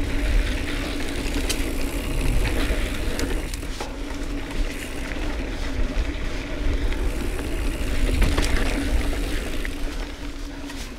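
Riding noise from a mountain bike on a dry dirt singletrack: wind rumbling over the microphone, with tyres crunching on the dirt and many small knocks and rattles from the bike.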